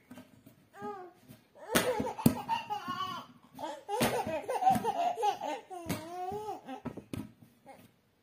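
A baby laughing and squealing in many short, high rising-and-falling bursts. A few sharp knocks are mixed in, the loudest about two seconds in.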